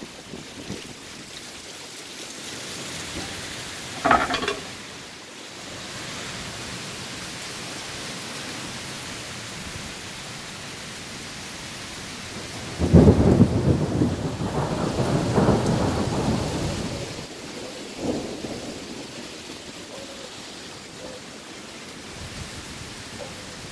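Steady rain in a thunderstorm. A short sharp sound comes about four seconds in, and a loud rumble of thunder starts about halfway through and rolls on for several seconds.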